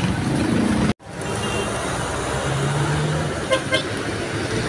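Street traffic, with vehicle engines running and passing; the sound drops out for an instant about a second in. A vehicle horn gives two short toots near the end.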